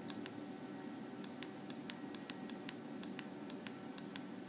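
Keys of an LG KS360 phone being pressed to scroll through its menus: short, light clicks, about three a second at uneven spacing.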